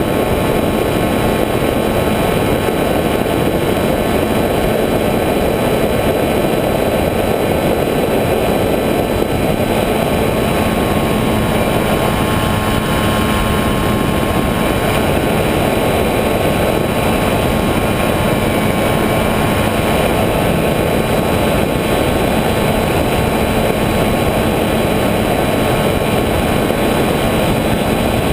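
Electric motors and propellers of a radio-controlled FPV aircraft running steadily in flight, heard from the camera riding on it. Dense rushing noise is overlaid by a faint whine of several steady tones.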